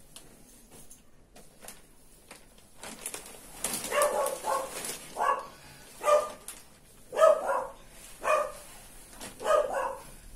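A dog barking over and over, a bark roughly every second, starting about three and a half seconds in. Before that, only faint rustling of padded fabric being handled.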